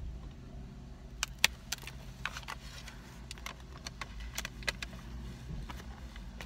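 Crunchy iced biscuit being bitten and chewed close to the microphone: irregular sharp crunches, over a steady low car rumble.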